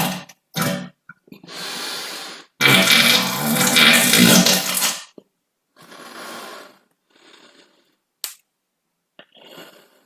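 A string of farts. A brief one comes first, then a long, loud one from about two and a half to five seconds in, followed by several shorter, quieter ones.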